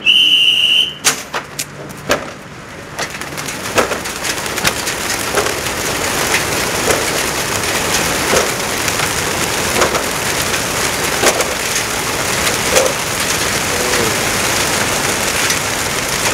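A brief steady high tone, then a few sharp knocks as the truck's pigeon crates open. Hundreds of racing pigeons then burst out and take off together, a dense rush of wingbeats and wing-claps that builds over a few seconds and then stays loud.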